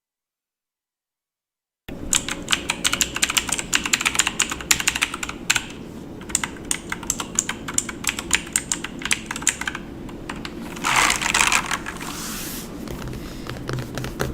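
Computer keyboard being typed on: fast, irregular key clicks after about two seconds of dead silence, with a short pause partway through. About eleven seconds in comes a louder rushing noise lasting a second or so, then lighter clicking.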